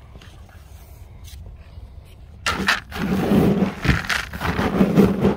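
Hand stirring dry dog kibble in a bowl to mix in diatomaceous earth: a rattling, scraping clatter of pellets that starts about halfway through, after a quieter stretch.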